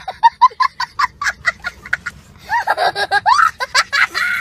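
A young child laughing hysterically. It starts as a quick run of short 'ha' bursts, about six a second, then turns into longer, higher, squealing laughs that rise and fall in pitch from about halfway.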